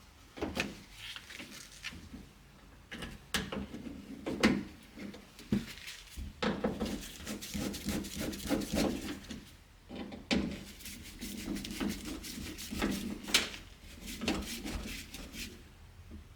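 Hand work on a Subaru Sambar's sliding door mechanism: irregular clicks, knocks and rubbing of metal and plastic parts being handled and fitted, with a couple of sharper knocks.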